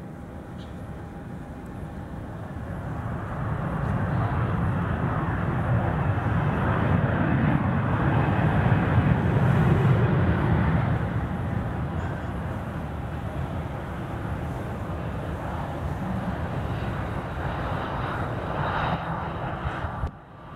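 Jet aircraft engines running on the airfield: a steady rumble that swells over the first few seconds, is loudest about halfway through, then eases off to a steady level.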